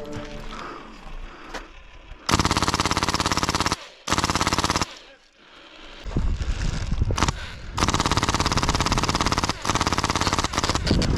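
Airsoft guns firing on full auto in several long bursts of rapid shots, starting about two seconds in.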